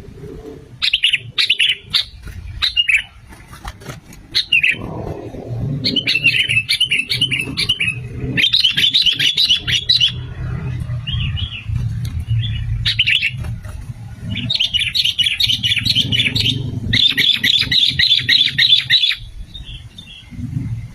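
Sooty-headed bulbul (kutilang) calling in repeated bouts of rapid chattering notes over a steady low rumble.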